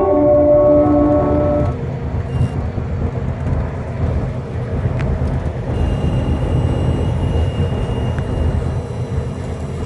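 Music stops about two seconds in. It leaves a steady low rumble of tyre and engine noise inside a moving vehicle's cab.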